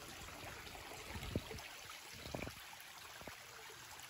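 Small shallow creek trickling over rock, a faint steady rush of running water, with two soft low thumps about a second and a half and two and a half seconds in.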